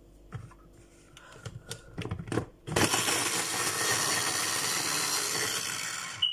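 Scattered clicks and knocks as the electric mini chopper is handled on its glass bowl. About three seconds in, its motor starts and runs steadily for about three and a half seconds, chopping potatoes, then stops.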